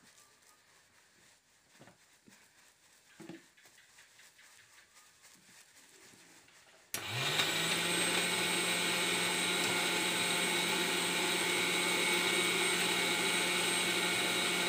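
Faint taps and rustles of rice flour being shaken through a bamboo sieve. About seven seconds in, an electric motor starts suddenly, spins up and runs at a steady pitch, far louder than the sifting.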